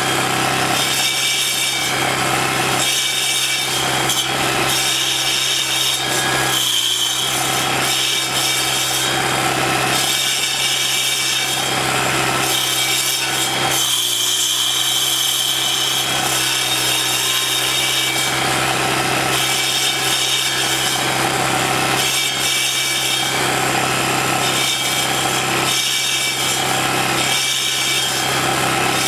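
Troy-Bilt four-stroke sidewalk edger, fitted with two 7¼-inch carbide-tipped saw blades in place of its edging blade, running steadily as the blades grind into a tree stump. A continuous rasping chew of wood sits over the engine note, rising and falling as the blades are worked across the stump.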